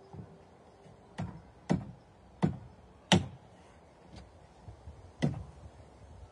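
Hand striking the top of a square-sawn timber lintel to knock it down onto its post, five dull wooden knocks at uneven intervals, the loudest a little after three seconds in.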